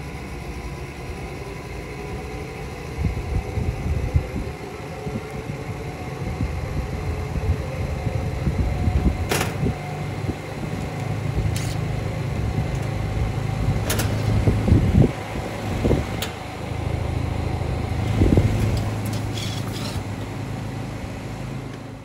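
Trane central air-conditioner outdoor condenser running just after startup: the fan motor spins up, its pitch rising over the first few seconds, over a steady compressor hum. A few sharp clicks and some low rumbles come and go.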